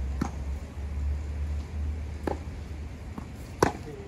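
Tennis balls struck by rackets in a baseline rally: sharp, hollow pops from the strings, about two seconds apart, with a fainter bounce between them. The last hit, close by, is the loudest. A steady low rumble sits underneath.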